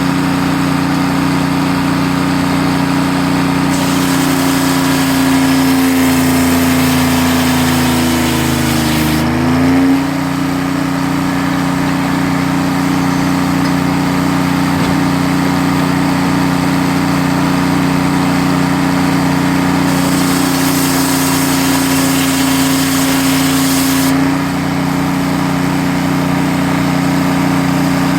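Sawmill engine running steadily while the saw cuts through wood twice, each cut adding a hissing rasp for several seconds. During the first cut the engine pulls down in pitch under the load, then picks back up as the cut ends.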